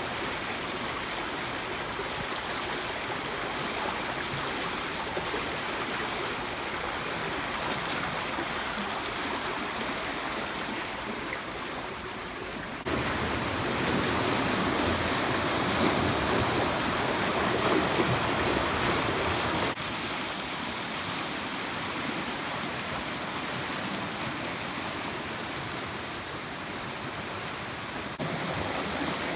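River water running over rocks, a steady rush of flowing water. It jumps in level at cuts between shots, louder for several seconds in the middle.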